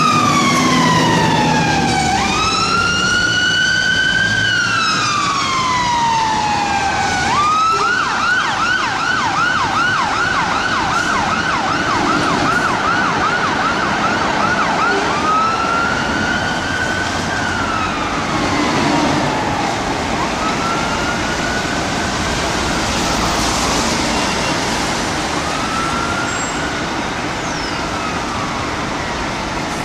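UK fire engine's electronic siren in a slow wail, sweeping up and down. About seven seconds in it switches to a fast yelp for several seconds, then goes back to the wail and grows fainter as the engine moves away.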